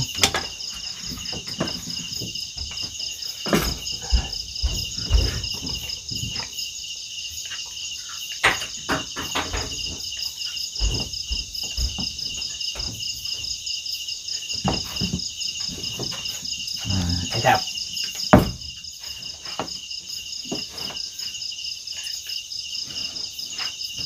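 Steady chorus of night insects, a rapid pulsing trill in several high bands, with scattered short knocks and clicks from things being handled close by.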